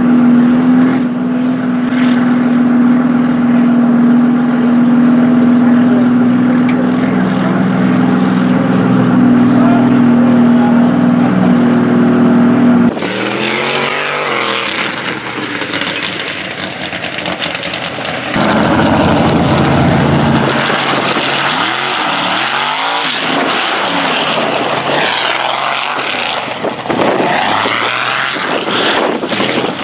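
Mega mud truck engine running hard at high, steady revs, then from about halfway through revving up and down over and over as the truck is driven through the mud pit.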